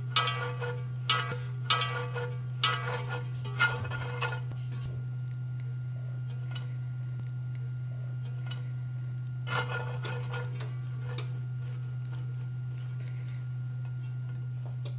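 Raw asparagus spears tossed and rolled by hand in oil and seasoning in a cast iron skillet: a quick run of rustling, scraping strokes over the first four seconds, then one more brief burst near ten seconds. A steady low hum runs underneath.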